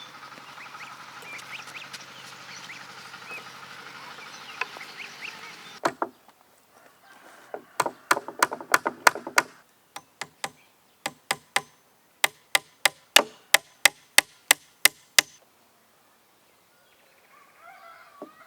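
Poultry, likely geese, calling in the background. Then comes a run of sharp chopping strokes, about three a second, in two bursts that stop about fifteen seconds in.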